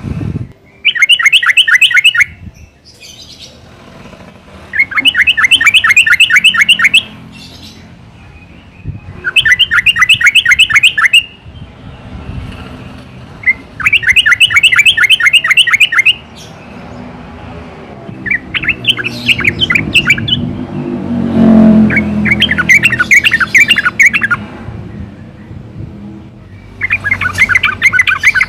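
Yellow-vented bulbul (Pycnonotus goiavier) singing repeated bursts of quick, bubbling, chattering notes, one phrase every few seconds, about seven phrases in all. A low rumble sits underneath, strongest around the middle.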